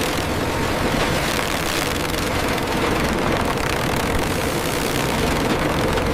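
Log-debarking machinery running steadily: an even mechanical noise with a constant mid-pitched hum underneath.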